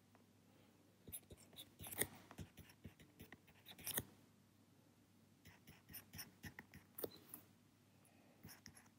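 Faint, scattered taps and scratches of a stylus writing on a tablet screen, in two short runs with a pause between them.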